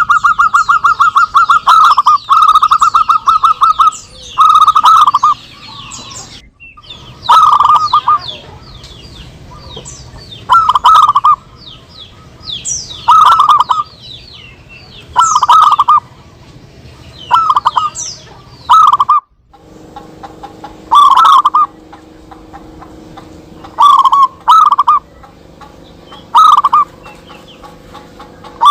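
Zebra doves (perkutut) calling back and forth, each call a quick run of short rolling coos, repeated every couple of seconds, with high twittering chirps over them. The sound drops out briefly twice.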